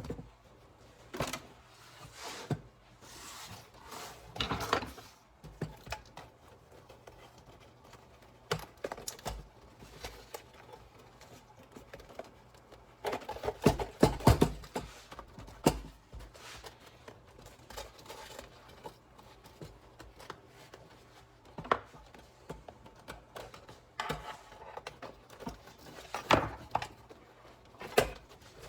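Scattered knocks, clicks and rustling from hands working over a motorcycle seat's layered foam and seat pan. The busiest, loudest stretch comes about halfway through.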